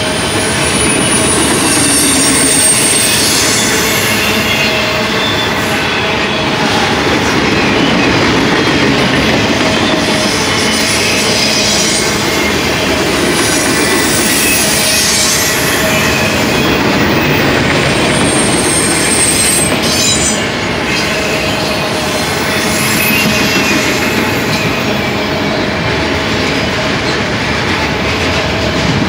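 Fully loaded autorack freight cars rolling past at close range: a steady rumble of steel wheels on rail, with brief high wheel squeals a couple of times.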